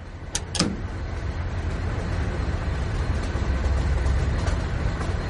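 Heavy freight train rolling fast on the rails, a steady rumble that slowly grows louder as the runaway train picks up speed. It is preceded by two short clicks near the start.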